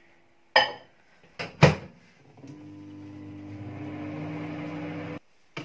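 A microwave oven door knocks shut, a sharp knock followed by two more, then the two-knob microwave starts and runs with a steady electrical hum that stops abruptly near the end.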